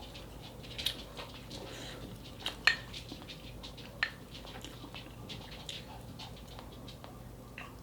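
Eating utensils clinking against tableware at a meal: a few separate light clinks, one sharper ringing clink near three seconds in.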